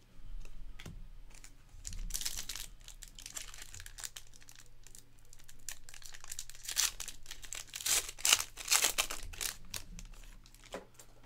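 Foil wrapper of a 2023 Panini Elite Extra Edition baseball card pack crinkling and being torn open by hand. The crackle comes in spurts, with the longest and loudest stretch in the second half.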